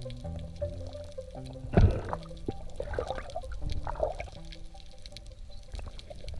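Background music with held, changing notes over underwater gurgling and bubbling water noise, loudest in a brief surge about two seconds in.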